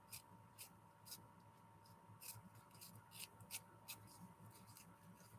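Near silence, with faint scattered crinkles and ticks of crepe paper being twisted and pinched between the fingers.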